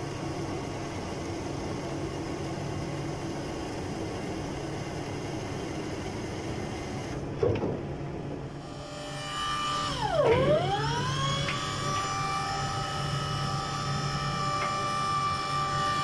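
Electric hydraulic pump motor of a Yale reach truck with its oil running somewhat short. It gives a steady low hum with a click about halfway through, then a whine that dips and climbs to a steady high pitch for the last few seconds.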